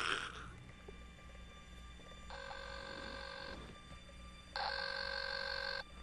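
Telephone ringing: two electronic rings, each a little over a second long, about a second apart.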